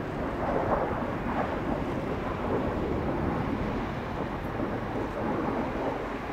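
Kawasaki T-4 jet trainer's twin turbofan engines heard from a distance as a steady, low rumbling roar during a smoke-trailing pass.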